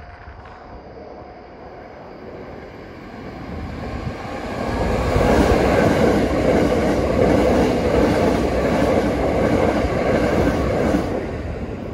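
Keikyu Main Line electric train passing through a station at speed without stopping. Its running noise builds from about three seconds in, is loud from about five seconds until about eleven, then begins to fade.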